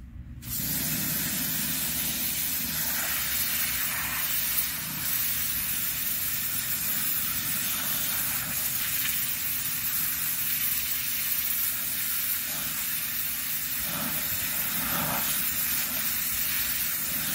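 Sun Joe SPX3000 electric pressure washer jetting water onto a clay bird bath's mosaic tile basin: a loud, steady hiss of the high-pressure spray with a low motor hum underneath. It starts about half a second in and cuts off suddenly at the end as the trigger is released.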